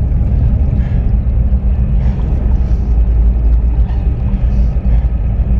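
A train running past close by in a tunnel: a loud, steady low rumble with a constant low hum, unchanging throughout.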